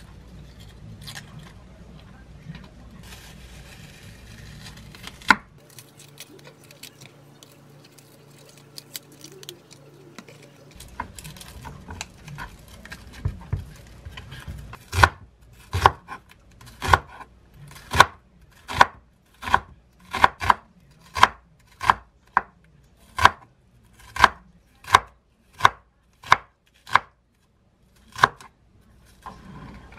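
Chef's knife slicing rolled green onion layers into thin strips on a wooden cutting board: a steady run of sharp chops, about one and a half a second, through the second half. Before that, quieter handling sounds as the onion layers are peeled apart and rolled, with one sharp click about five seconds in.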